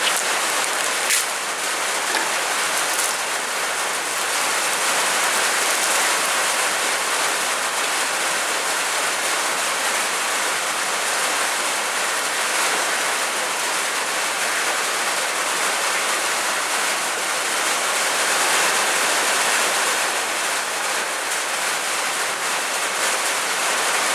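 Heavy rain falling steadily, a constant hiss of rainfall during a thunderstorm, with a single light click about a second in.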